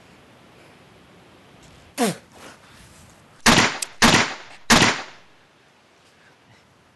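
A brief sound falling in pitch about two seconds in, then three loud, sharp impacts about two-thirds of a second apart, like blows or shots.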